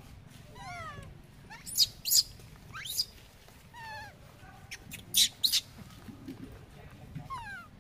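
Infant macaque crying: repeated high calls that fall in pitch, broken by several short, shrill squeals that are the loudest sounds. These are typical distress cries of a baby monkey being handled and pulled about by an older juvenile.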